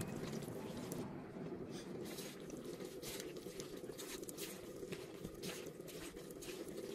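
A hand in a rubber glove squeezing and turning raw, spice-coated pork pieces in a pot, giving wet, irregular squishing and soft ticking noises.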